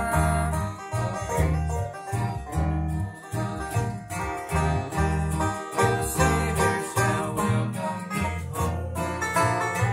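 Acoustic guitar and upright bass playing an instrumental passage of an old-time country gospel tune, the bass plucking a steady beat under the guitar's strummed and picked chords.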